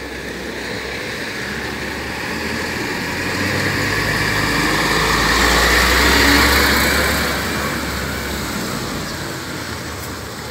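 Concrete mixer truck driving past at close range, its diesel engine and tyres growing louder to a peak about six seconds in, then fading away.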